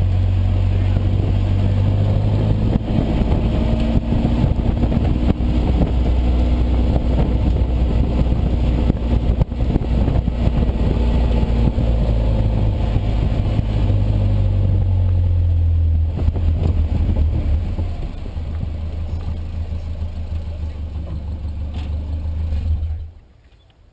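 Nissan D21 Hardbody pickup's engine running hard through an autocross run, pitch changing with throttle and gears. It eases off and gets quieter in the last several seconds, then cuts off near the end.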